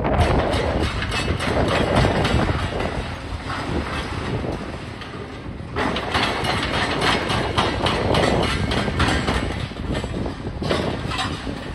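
Hydraulic demolition excavators breaking up a concrete building: a dense clatter of crunching concrete and falling rubble over the steady run of their diesel engines. The clatter eases for a couple of seconds around the middle, then starts up loud again.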